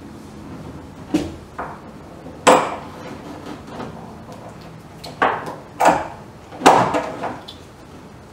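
Sharp metal clinks and knocks from low-profile mini V-track barn door hardware as a wheel and axle are fitted onto the door's hanger overhead: about six separate strikes, the loudest about two and a half seconds in and again past two-thirds of the way through.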